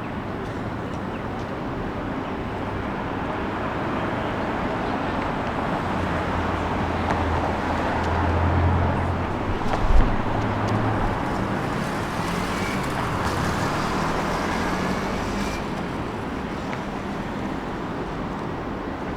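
Busy transit-station ambience: a steady wash of vehicle and traffic noise. A heavy vehicle's low rumble builds and peaks with a single thump about halfway through, followed by a faint rising whine.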